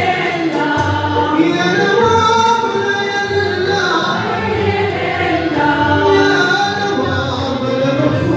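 Moroccan madih (religious praise song): male voices singing a melismatic melody together, over violins and ouds, with a low beat pulsing about once a second.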